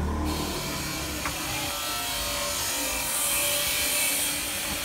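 Screwdriver turning a screw on the DVR main board's chassis mounting, a steady metal rubbing and scraping, a little stronger about three seconds in.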